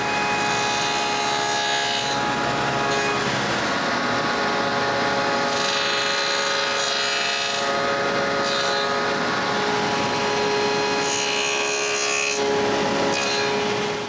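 Table saw running and cutting shallow hinge dados in the edge of a walnut box. The motor and blade hum at a steady pitch, and the cutting noise swells and fades several times as the wood is passed over the blade.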